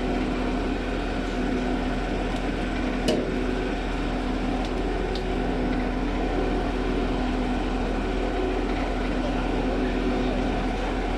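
Truck-mounted concrete boom pump running steadily, its engine and pump giving a constant pitched hum. One sharp click about three seconds in.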